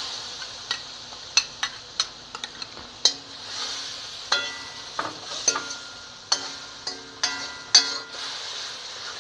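A spoon stirring a tomato, garlic and ginger paste frying in ghee in a kadhai, clinking sharply against the pan about fifteen times at irregular intervals over a soft sizzle that swells and fades.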